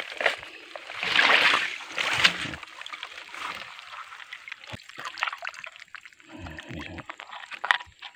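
Water splashing and sloshing as a bamboo fish trap (bubu) is handled and lifted out of shallow floodwater among grass. The loudest splashing comes about a second in, followed by smaller splashes and rustling, and a sharp click near the end.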